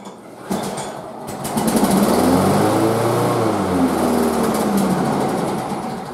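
Push lawn mower's small engine pull-started about half a second in: it catches, speeds up, then slows and dies away near the end. The owner puts the poor running down to a carburettor needing work; the engine runs without vibration on its freshly straightened crankshaft.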